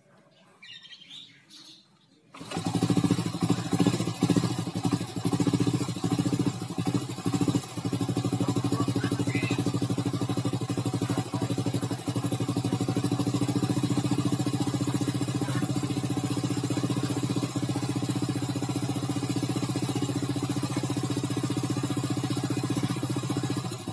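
A Honda Astrea Grand's small single-cylinder four-stroke engine starts about two seconds in, runs unevenly for a few seconds, then settles into a steady idle. It runs noisily, with a sound that the mechanic takes for a loose cam chain (keteng).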